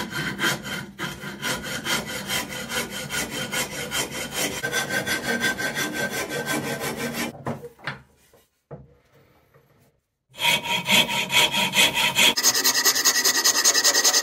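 Hand rasp filing down a hickory axe handle in quick, even back-and-forth strokes, thinning the thick handle. The rasping breaks off for about two seconds in the middle, then starts again and sounds brighter and louder near the end.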